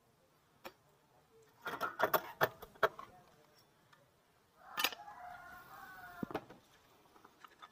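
A few sharp metal clinks as engine parts and tools are handled, then a rooster crowing once for nearly two seconds.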